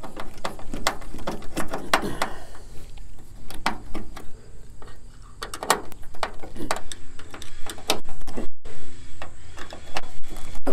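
Hand screwdriver driving screws with star washers through a metal antenna mount into the truck's tailgate edge: irregular clicks and scrapes of metal on metal.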